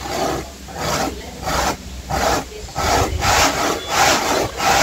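Dry corn rubbed up and down a metal grater fixed to a wooden board, grating it into corn flour: a run of rhythmic rasping strokes, a little under two a second.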